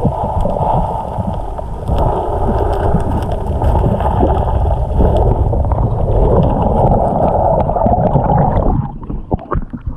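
Fast floodwater rushing and churning around a kayak, a loud, muffled, rumbling wash that drops away sharply near the end.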